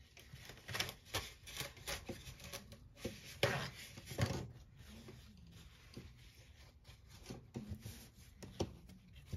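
Scattered light clicks, taps and rubbing of small nail-stamping tools and bottles being handled, with two louder knocks about three and a half and four seconds in.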